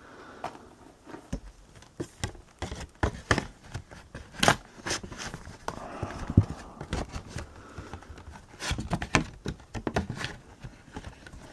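Irregular clicks and knocks of a plastic DVD/Blu-ray case and its discs being handled and pressed back into place.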